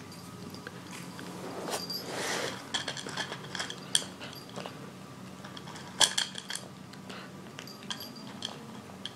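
Kitten eating dry kibble from a plastic bowl: clusters of sharp crunches and clicks as the pieces knock against the bowl. A brief rustle comes about two seconds in.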